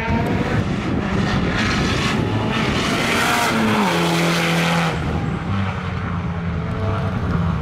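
Rally car passing at speed, engine at high revs, loudest about three seconds in. The engine note drops lower as it goes by.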